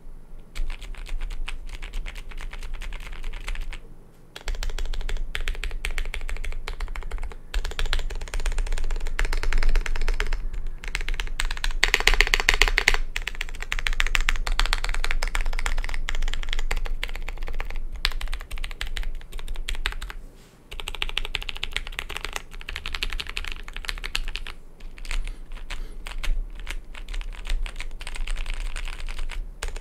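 Continuous typing on a Space80 Apollo mechanical keyboard with Zealios V1 65g tactile switches and GMK Eclipse keycaps, with short pauses about four and twenty seconds in.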